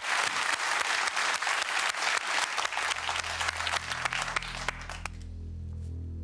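Studio audience and contestants applauding as a low-value £10 box is revealed. The clapping fades out about five seconds in, while a low, steady music drone starts underneath about halfway through.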